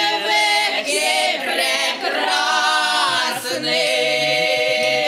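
A group of voices singing a song in close harmony, holding long notes with little or no instrumental backing.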